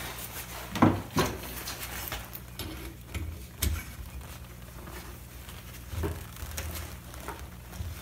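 A spark plug wrench being worked on a spark plug in an aluminium motorbike cylinder head: a few scattered light metal clicks and knocks as the plug is threaded in by hand, with rustling of gloves and sleeves.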